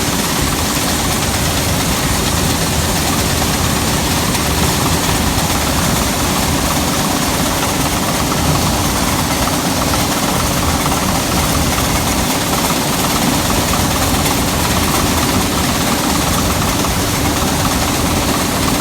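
Gleaner M2 combine running steadily while harvesting soybeans: a constant engine drone with the hiss of the threshing machinery.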